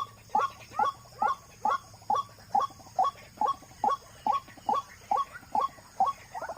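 White-breasted waterhen giving its repeated 'wak' call: short notes, each falling sharply in pitch, about two a second. Near the end a busier, chattering call begins.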